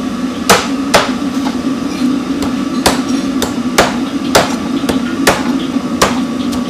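Heavy cleaver chopping a raw goose through bone on a thick wooden chopping block: sharp chops about two a second, some harder than others, over a steady low hum.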